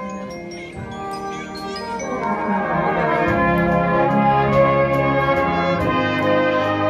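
Brass band of cornets, trombones and tubas playing a piece under a conductor, the music swelling louder about two seconds in.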